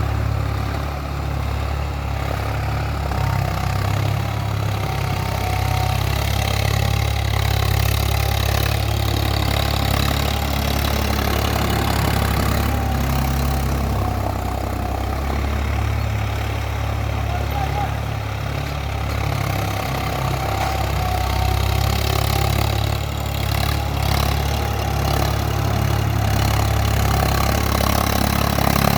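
Swaraj 963 FE tractor's diesel engine running steadily while pulling a plough through a field.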